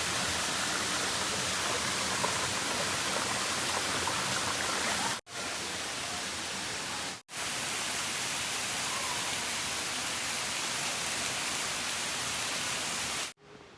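Steady roar of a waterfall's rushing water, cut off for an instant twice, about five and seven seconds in.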